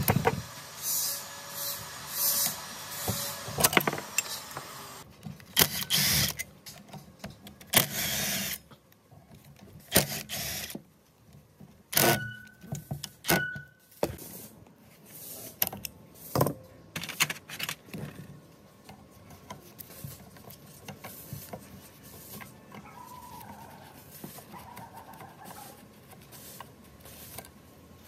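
Metal clinks, scrapes and knocks of hand-tool work on a cut-off saw's electric motor as a wrench takes the nut off the motor shaft, busiest in the first half. A couple of short metallic rings come about twelve to fourteen seconds in.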